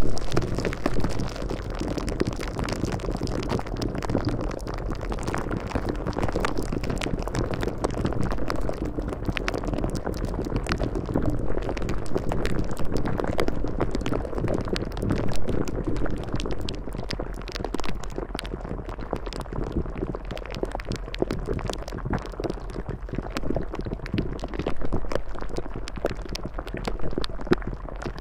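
Steady water-like bubbling noise, dense with small crackles, over a low steady hum.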